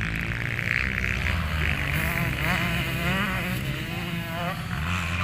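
Motocross dirt bikes on the track, their engines buzzing and revving up and down, several at once.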